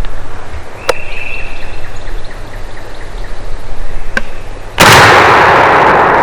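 A loud shotgun shot about three-quarters of the way in. The blast and its echo last about a second and a half, then cut off abruptly. Before it come a few sharp clicks.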